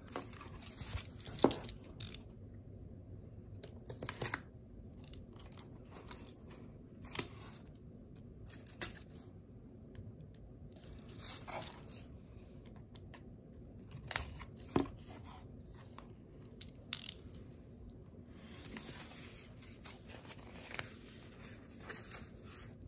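Cardboard packaging being opened: tearing, with scattered sharp taps and knocks as it is handled.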